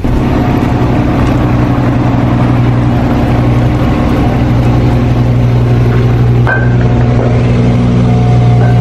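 A motor running steadily with a loud, even hum made of several held tones, which shift slightly about halfway through and again near the end.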